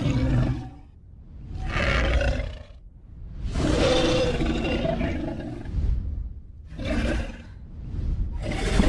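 Dragon creature sound-effect roars, one after another with short gaps: one dies away about half a second in, another comes at about two seconds, a long one runs from about three and a half to six seconds, a short one follows near seven seconds, and another starts near the end.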